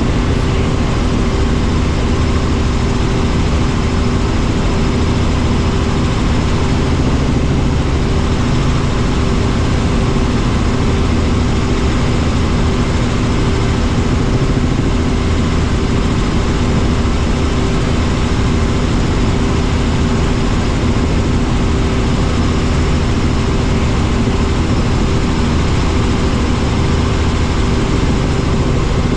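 Helicopter in steady cruise heard inside the cabin: engine and rotor noise, a loud, constant drone with an unchanging hum.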